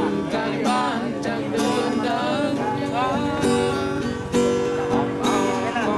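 Acoustic guitar being strummed, with a voice singing along in gliding, bending pitches.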